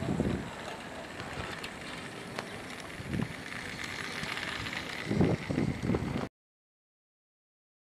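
Battery-powered toy train running along its track: a steady motor hum with a faint whine and the rattle of wheels on the track, swelling now and then. The sound cuts off abruptly about six seconds in.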